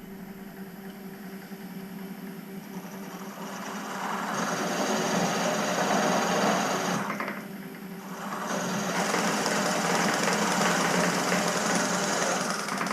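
Electric drill motor running steadily with a Dormer bit, cutting into metal in two spells: louder grinding cutting noise from a few seconds in, a brief drop in the middle, then cutting again until near the end.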